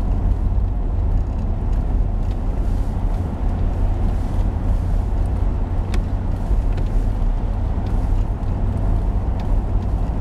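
Car driving steadily through a road tunnel, heard from inside the cabin: a steady low rumble of engine and tyre noise.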